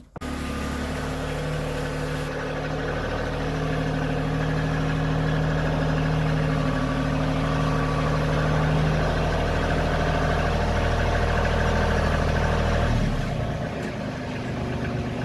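Tractor engine running steadily at low speed as the tractor is driven into the barn, getting a little louder a few seconds in and easing off near the end.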